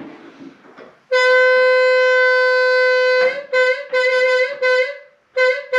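A single wind instrument playing a short tune. It holds one long note for about two seconds, then plays a quick run of short notes at nearly the same pitch, pauses briefly, and plays two more.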